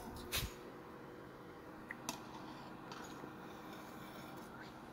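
Light metallic clicks as the glowing enameling kiln is opened and the piece on its metal trivet is loaded: a sharp click at the start, a softer one just after, and two tiny ticks about two seconds in. Between them a faint steady hum.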